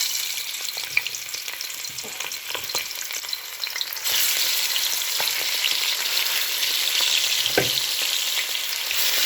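Chicken drumsticks frying in hot red palm oil in a pot, a steady sizzle that grows louder about four seconds in. A single knock sounds about two-thirds of the way through.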